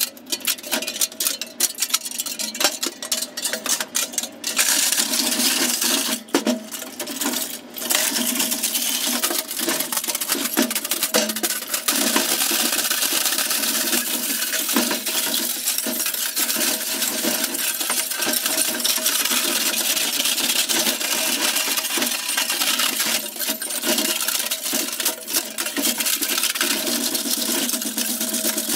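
Home-built shredder chewing through 3.5-inch floppy disk drives: a dense, continuous clatter of metal and plastic being crunched. It comes in uneven patches for the first several seconds, then settles into a steady grind as the shredder keeps turning under the load.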